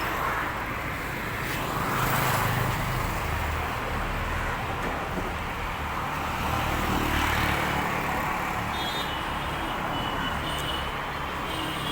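Road traffic going by: a steady rush of engines and tyres that swells as vehicles pass, about two seconds in and again around seven seconds in.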